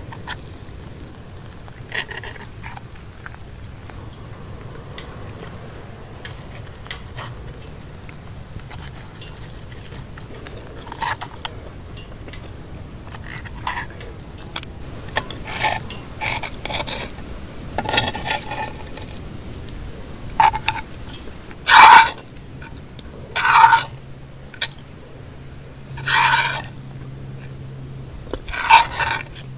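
Metal fork scraping and clinking against a frying pan, light and scattered at first, then several short, louder scrapes in the second half.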